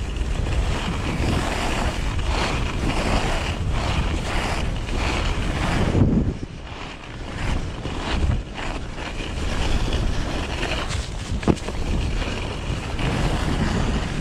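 Wind buffeting the action camera's microphone over the scraping hiss of snow blades sliding on packed snow, with one sharp knock near the end.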